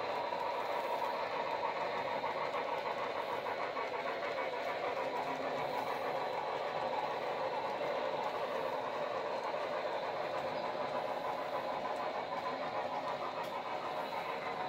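HO-scale model freight cars rolling along the track, a steady rumble and clatter of the small wheels on the rails.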